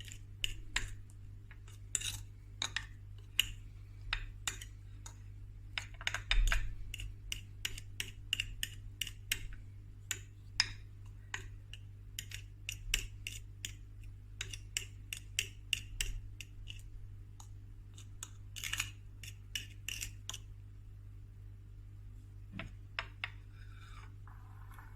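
A kitchen utensil clinking and scraping against a dish in quick, irregular taps that thin out near the end, over a low steady hum.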